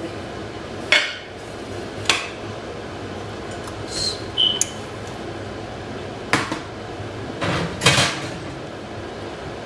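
A large metal cooking pot with its lid being handled and lifted off a glass-top stove: a few sharp metal knocks and clanks, the loudest near the end. A short high tone sounds about four seconds in.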